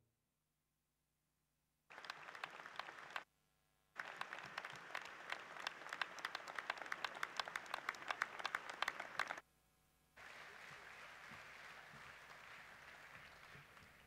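Audience applause after about two seconds of silence. It comes in three stretches, each cut off abruptly: a short burst, a long loud stretch of dense clapping, then a softer, smoother stretch.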